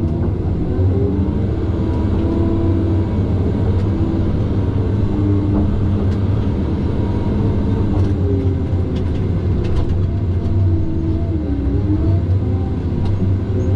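Tigercat 610E skidder's diesel engine running steadily under way, a low drone with a higher tone that rises and falls, and a few light clicks and rattles around the middle.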